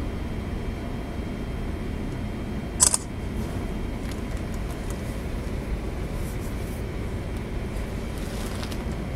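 Steady low rumble of a 1000-foot Great Lakes freighter under way, its engines and machinery heard from on board, with a brief sharp clatter about three seconds in.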